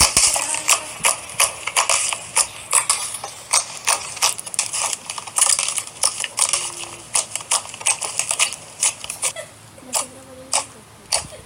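Slime being squeezed and played with by hand, making rapid irregular clicks and pops that grow sparser near the end.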